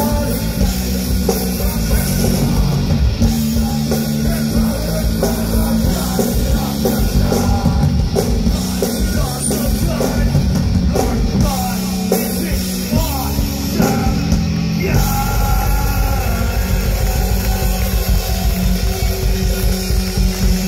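Loud rock music with a singing voice; about fifteen seconds in the singing drops out and the band plays on.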